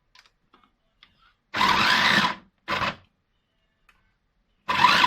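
Electric food chopper pulsed in short bursts while chopping onions: a long burst about a second and a half in, a short one just after, and another near the end. The motor's pitch rises as it spins up in each burst. A few faint clicks come before the first burst.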